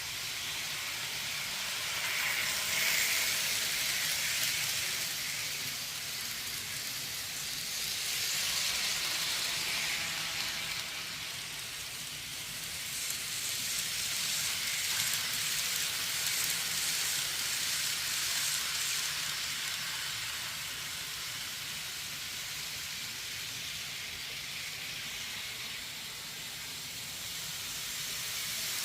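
Kato N-gauge model train running on track: a steady high-pitched hiss of small wheels and motor that swells and fades several times as the train runs closer and farther away.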